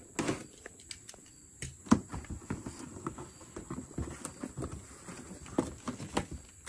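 A cardboard box being opened by hand: taped flaps pried and pulled apart, the cardboard scraping and creasing in a string of irregular clicks and rustles, with one sharp crack about two seconds in.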